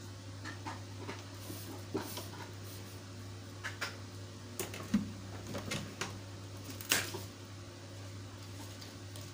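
A certificate being handled and lined up on the board of a hot foil stamping press: scattered light rustles and small taps, with a few sharp clicks about five and seven seconds in, over a steady low hum.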